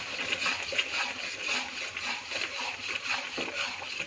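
A metal spatula stirring thick, bubbling sauce in a wok on the stove, with a steady sizzle and crackle.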